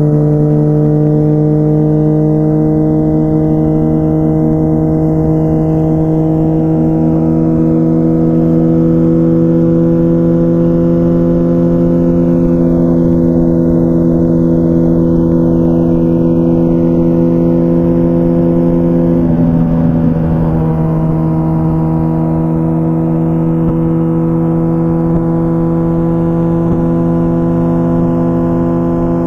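2004 Honda CBR1000RR Fireblade's inline-four running through an aftermarket Jardine titanium exhaust, holding nearly steady revs at highway cruise. The engine note creeps up slightly and briefly breaks about two-thirds through before carrying on steadily.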